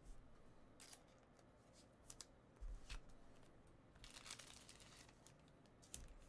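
Faint handling of trading cards: a few short, crisp slides and light clicks of card stock scattered through, with quiet pauses between.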